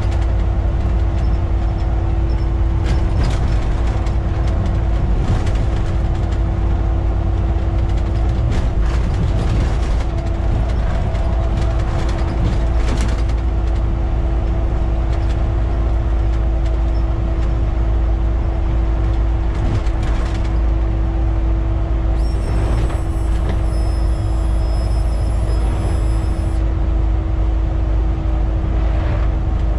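Volvo B7TL double-decker bus's six-cylinder diesel running loud at a steady cruise, heard from the driver's cab: a heavy low rumble with a constant hum and scattered interior rattles. About two-thirds of the way through, a few seconds of high thin whistling tones sound over it.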